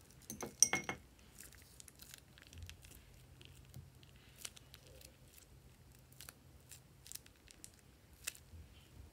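Thin plastic piping bag crinkling and crackling as it is squeezed out, loudest in a burst of sharp crackles about half a second in, then scattered small clicks and crinkles as water beads spill onto the slime.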